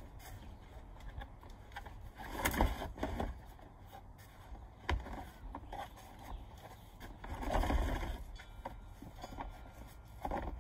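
Plastic stacking-planter tiers scraping and knocking against each other as they are pushed and fitted together: two longer scrapes, about two and a half seconds in and around eight seconds, with sharp single knocks between and near the end.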